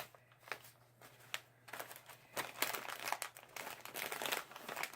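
Paper chip bag rustling and crinkling as hands fold its taped flaps over and press the two sides together: a run of quick crackles that gets busier about two seconds in.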